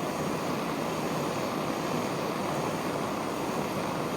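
Jeweller's gas torch running, the flame giving a steady, even rushing hiss as it heats a seam in Argentium sterling silver.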